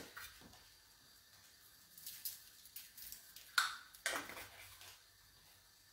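Quiet kitchen handling: a few light clicks and taps as a glass jar of salt is handled and salt is sprinkled over raw turkey slices, with two sharper clicks a little past halfway.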